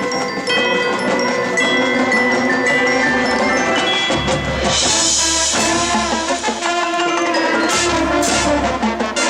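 Marching band music carried by the front ensemble's mallet percussion: marimba, glockenspiel and chime-like ringing notes. About four seconds in, low drum hits and a bright cymbal-like wash join, and there are sharp percussion strokes near the end.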